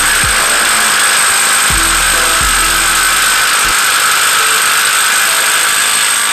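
Matco 20V brushless cordless 3/8-inch-drive impact wrench hammering continuously and loudly on a nut tightened to 500 ft-lbs, trying to break it loose. It cuts off just before the end.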